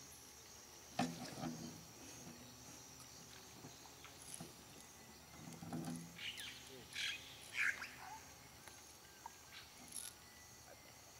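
A faint, steady high-pitched drone of jungle insects, with a sharp knock about a second in and a few short, squeaky animal calls bunched between about six and eight seconds in.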